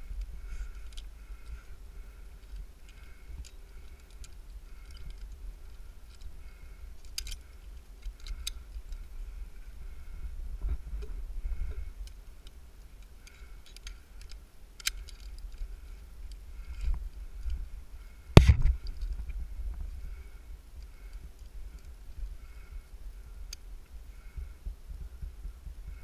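A tree climber handling climbing rope and a metal carabiner or rigging device up in the tree, giving scattered small clicks and rustles against a low rumble, with one sharp knock a little after eighteen seconds in.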